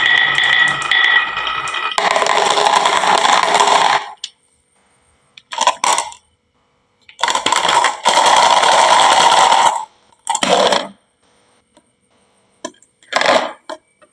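Marbles rolling and clattering down a wooden marble run, in several bursts of a second or two with silent gaps between and a few single clicks near the end.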